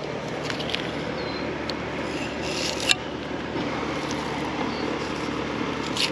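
Flexible fillet knife slicing and scraping through shark meat along the cartilage, over a steady mechanical hum; one sharp click about three seconds in.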